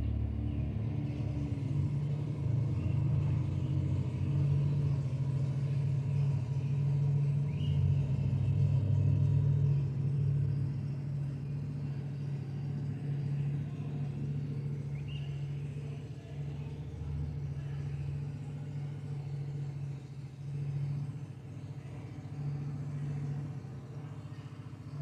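Motorcycle engine running steadily nearby with a low hum, its revs dropping about a second in and the sound easing somewhat in the second half.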